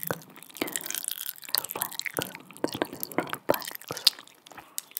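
Close-miked ASMR mouth sounds: irregular wet clicks and smacks of lips and tongue, a few a second.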